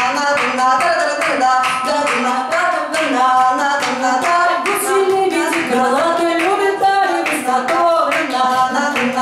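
Hands clapping a steady beat while a woman's voice sings a melody over it.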